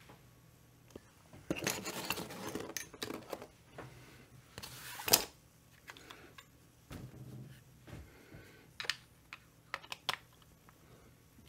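Handling noises from a Stihl 025 chainsaw's plastic housing and tools on a workbench: rustling and clattering, a sharp knock about five seconds in, then scattered light clicks.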